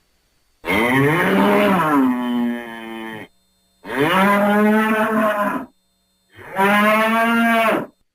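A bull mooing three times, each a long pitched moo with short silences between. The first swoops up and down in pitch before it settles into a steady, quieter tail.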